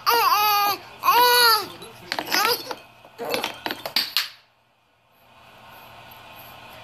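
Baby vocalizing loudly in about four high-pitched bursts whose pitch bends up and down, falling quiet about four seconds in.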